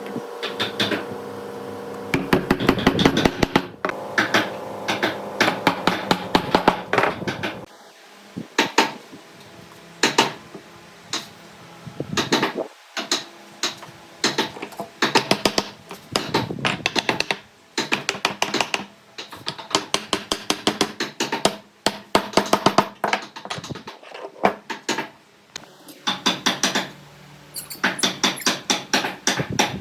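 Workshop handwork on wood: runs of sharp taps and knocks, several a second, coming in clusters with short pauses.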